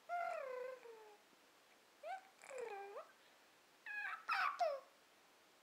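Pet cat giving a series of odd, drawn-out meowing calls: a falling call at the start, a call that rises then falls about two seconds in, and a quick pair of calls about four seconds in.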